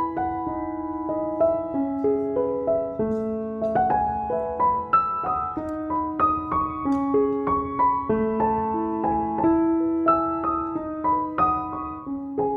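Gentle background piano music, single notes and chords struck one after another and left to ring.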